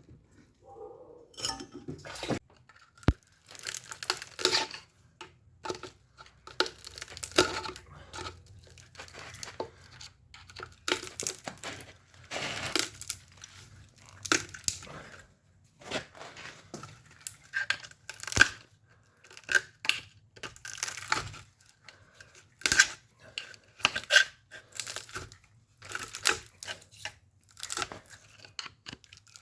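Copper windings being worked out of an old air-conditioning compressor's electric motor: irregular scraping, tearing and clanking of metal in short bursts a second or two apart, some with a brief metallic ring, and a sharp click about three seconds in.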